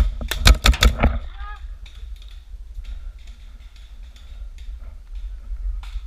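Paintball marker firing a rapid string of shots in the first second, followed by fainter scattered pops of paintball fire and a few more sharp pops near the end.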